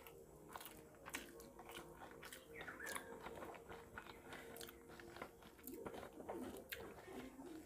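Close-miked eating sounds of a man eating rice and fish curry by hand: chewing, with sharp wet mouth smacks and clicks at an irregular pace, and his fingers squishing rice on the plate. A faint steady hum runs underneath.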